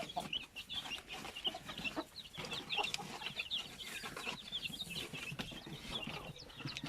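A brood of young chicks peeping together: many short, high cheeps overlapping one another without a break.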